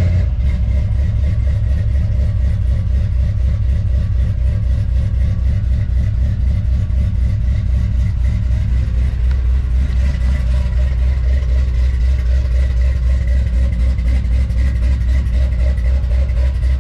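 Engine running at a steady idle: a loud, deep, evenly pulsing rumble that holds the same pace throughout.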